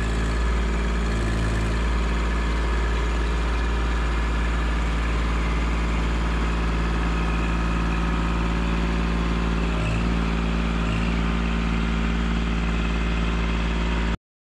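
Kubota compact tractor's diesel engine running at a steady speed while its front loader pushes a car. It cuts off suddenly near the end.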